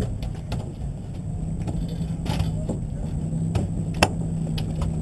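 Fishing boat's engine running with a steady low hum, under scattered small clicks and knocks on the deck, with one sharp knock about four seconds in.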